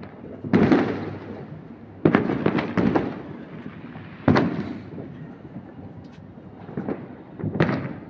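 Fireworks exploding in the sky: about seven sharp bangs, each dying away in a rolling echo. One comes about half a second in, a quick run of three between two and three seconds, one just past four seconds, and two close together near the end.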